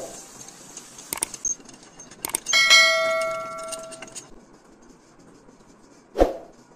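Steel parts of a homemade crank-operated shallot slicer clinking and knocking on a metal workbench. A sharp knock comes at the start, then a few light clicks. Midway a metal clang rings on for about a second and a half before dying away, and another sharp knock comes near the end.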